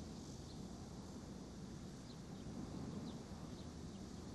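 Faint outdoor ambience: a steady low rumble with a few faint, scattered bird chirps.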